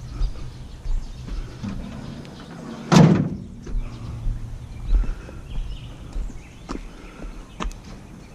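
A single loud slam about three seconds in, ringing briefly, then two lighter knocks near the end, over a low rumble.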